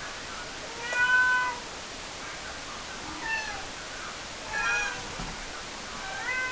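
Cornish Rex kitten meowing four times, high-pitched, the first call the loudest and longest and the later ones shorter with a falling pitch.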